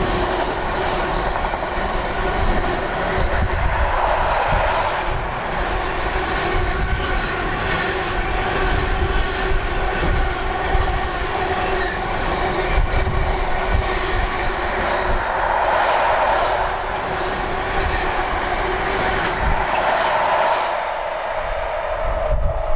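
A train running on the line, with a steady hum of several tones, and gusty wind rumbling on the microphone.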